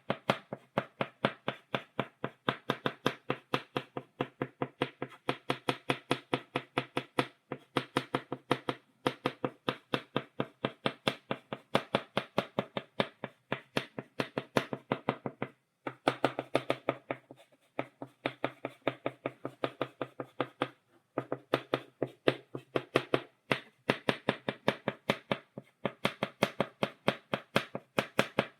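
Chalk tapping rapidly on a blackboard, dotting out a stipple drawing: a fast run of sharp taps, several a second, broken by a few brief pauses.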